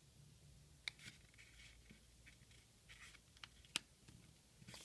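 Faint rustling and creasing of origami paper as fingers fold a sheet and press it flat, with two sharp little ticks, about a second in and near the four-second mark.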